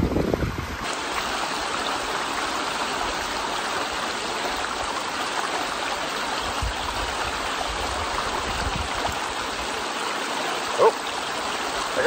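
Shallow creek water running over rocks: a steady rushing. A brief voice-like sound about eleven seconds in.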